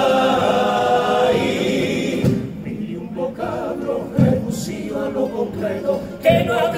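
Group of male voices singing together in harmony, holding a long chord at first, then singing more softly in shorter phrases before the full group swells again near the end.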